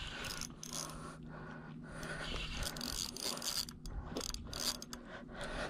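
Shimano Stradic 3000 spinning reel being cranked while playing a hooked fish, its gears whirring with an uneven run of clicks.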